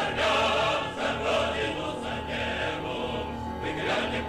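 Choral music: a choir singing held notes over a steady low drone.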